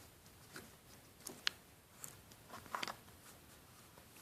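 Faint clicks and handling noise from a Victorinox Classic SD pocketknife as its small folding tools are moved, with one sharper click about one and a half seconds in.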